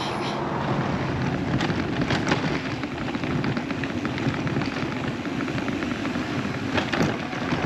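Steady rushing noise of strong wind on the microphone and tyres rolling on pavement, from a bicycle towing a loaded Topeak Journey trailer at about 23 km/h. A few brief rattles come through.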